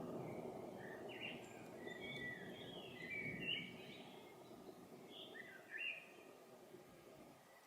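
A songbird chirping and twittering in short, repeated phrases, over a low rumble of distant thunder that fades away towards the end.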